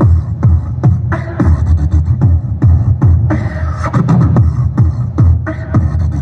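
Live rock band playing loudly through PA speakers: a heavy, steady beat about twice a second under electric guitars and keyboard.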